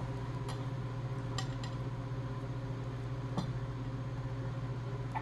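A few light clinks of dishes and cutlery over a steady low hum.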